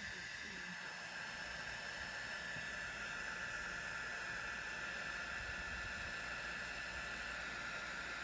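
Small handheld heat gun running steadily, a fan whine over the hiss of blown air, as it remelts the top of a container candle to fill holes in the wax.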